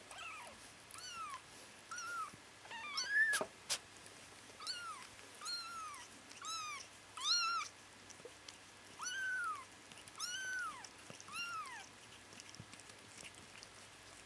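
Bengal kitten mewing: about a dozen short, high mews, each rising then falling in pitch, spaced through most of the stretch. A single sharp click comes about four seconds in.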